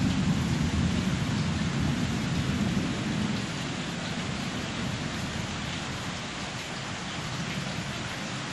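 Steady rain falling during a thunderstorm, with a low rumble of thunder over the first few seconds that dies away.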